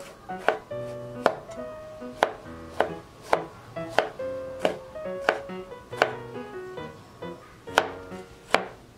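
Chef's knife cutting through a tomato and striking a wooden cutting board, about a dozen sharp chops, roughly one every two-thirds of a second.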